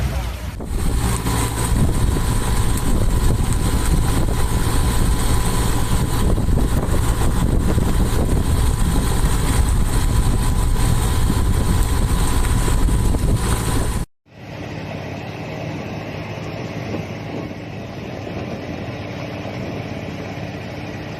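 A patrol boat's engine running under loud wind and sea noise. About two-thirds of the way through it cuts off abruptly, giving way to a quieter, steadier engine hum.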